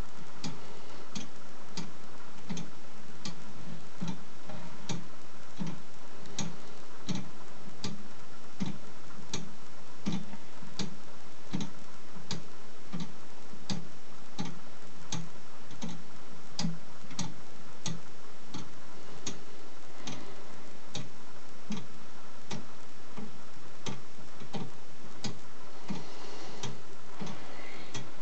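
Meccano lantern clock ticking steadily, its crown wheel and weighted foliot bar (a verge-and-foliot escapement) clicking at roughly two evenly spaced ticks a second.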